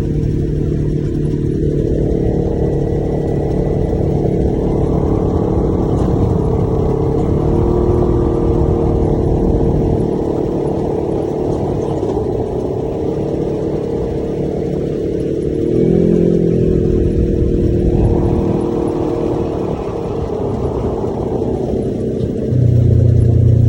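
Side-by-side UTV engine running steadily while driving, its pitch stepping up and down with the throttle. A rushing noise swells and fades twice over it, and a louder low hum comes in near the end.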